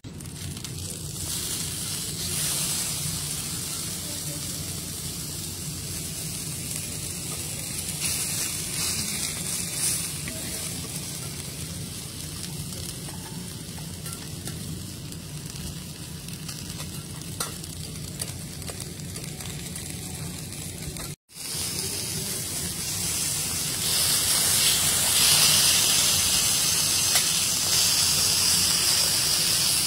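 Thick beef steaks searing on a flat steel teppanyaki griddle, sizzling steadily. The sound drops out for an instant about two-thirds of the way through, and the sizzle is louder over the last few seconds.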